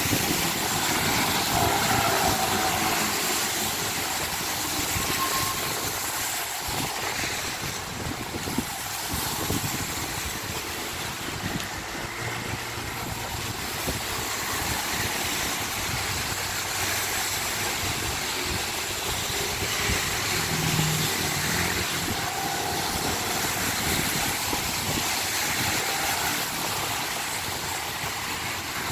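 Heavy rain falling steadily, a constant hiss, with cars passing on the wet road.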